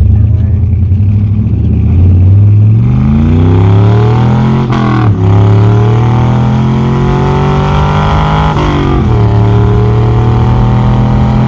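Carbureted 4.8-litre V8 of a 1999 Chevy S10 on headers, heard from inside the cab while accelerating through the gears of a four-speed manual. The revs climb from about two seconds in, drop at an upshift around five seconds, climb again, drop at a second shift near nine seconds, then hold steady.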